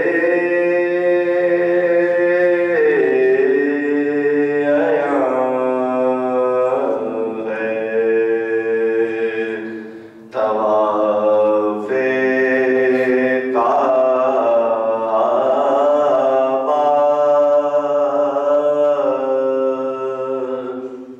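A man chanting a slow, melodic recitation, holding long notes. It comes in two long phrases, with a short pause for breath about ten seconds in.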